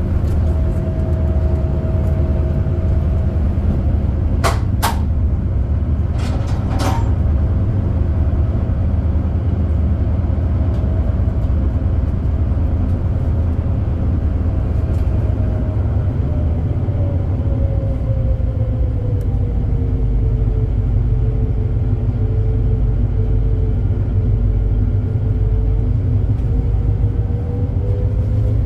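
Steady low drone of a high-speed ferry's engines heard inside the passenger cabin, with a whining tone that falls in pitch in the second half and then slowly rises again. Two sharp clacks come about four seconds in and again about two seconds later.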